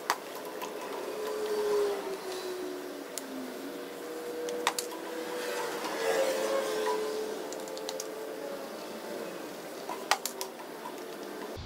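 Mashing in: crushed grain is added from a plastic bucket and stirred into hot water in a stainless steel mash tun with a metal paddle. Rustling and scraping, with a few sharp knocks: right at the start, just before halfway, and near the end.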